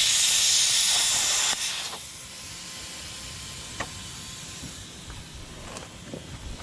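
Plasma cutter cutting through a seized bolt on a bulldozer blade's cutting edge: a loud, steady hiss that cuts off about a second and a half in, after which a much fainter steady hiss carries on.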